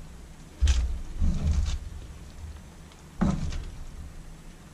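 A metal spoon knocking and scraping in a foil-lined baking tray as garlic butter is spooned over chicken: a sudden knock about a second in, a short clatter just after, and another knock about three seconds in.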